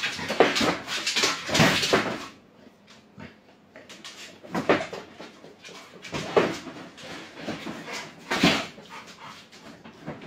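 A Labrador retriever nosing a small wooden shelf across the floor: the shelf scrapes in about four short pushes, the longest in the first two seconds.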